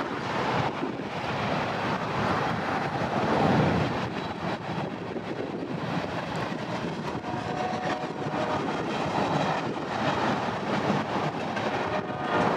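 Freight train cars rolling past on the track: a continuous, fairly loud rumbling noise, with a few faint high tones in the second half.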